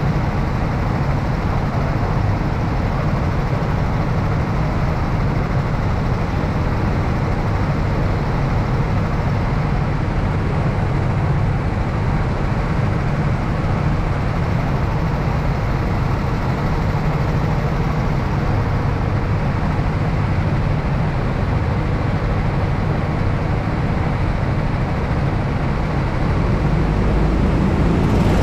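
Go-kart engine running steadily during a race, a constant low sound with no clear revving up or down.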